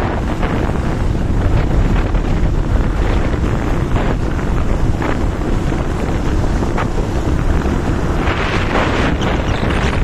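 Wind rushing over the microphone of a camera on a moving motorcycle, a loud steady rumble of noise.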